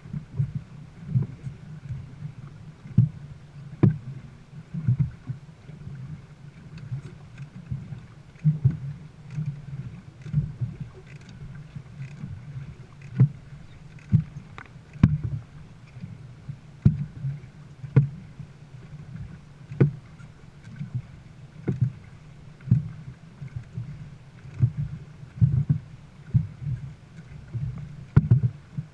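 Dragon boat under way with the crew paddling: a steady low rumble of water with repeated knocks and splashes from the paddles, roughly one every second or two.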